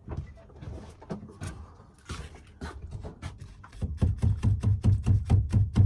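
Rubber mallet knocking a thin wooden ceiling board into place: scattered light knocks and handling at first, then from about four seconds in a fast, even run of dull thuds, about four a second.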